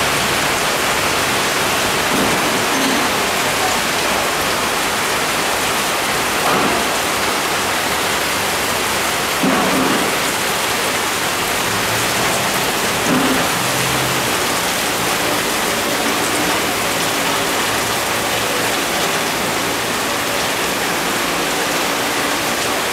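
Heavy rain pouring steadily, a dense even hiss, with a few short louder bumps along the way.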